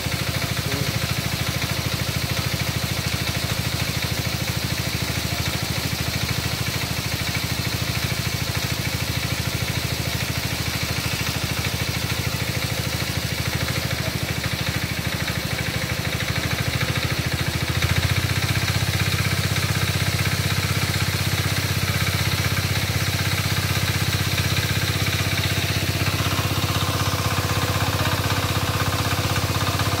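Engine running steadily at a constant speed. About eighteen seconds in its low hum gets stronger and a little louder.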